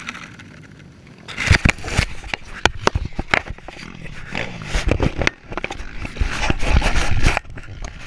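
Handling noise of a GoPro action camera picked up off the ground and fumbled in the hand: rubbing, scraping and repeated sharp knocks right on its own microphone, starting about a second and a half in.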